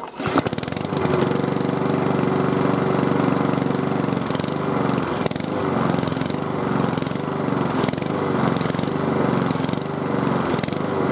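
Small petrol lawnmower engine starting on the pull cord and running, its speed rising and falling about once a second. The revs bounce up and down: a hunting idle, which the owner checks first at the governor springs and then puts down to a carburettor needing cleaning.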